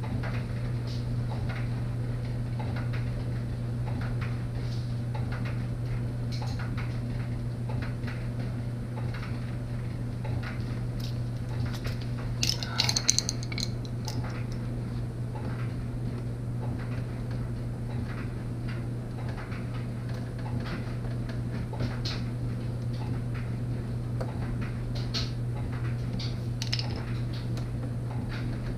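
Hand tools clicking and clinking against metal as bolts are taken out of a car's wheel-well panel, with a short cluster of louder metallic clinks about halfway through, over a steady low hum.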